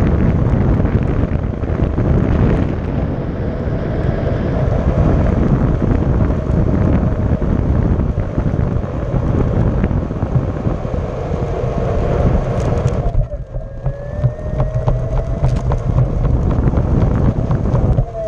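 A Onewheel XR riding on asphalt at around 20 mph and slowing: wind buffeting the microphone over tyre rumble, with a faint steady whine from the hub motor. About 13 seconds in, the wind noise briefly drops away, leaving the rumble and the motor whine.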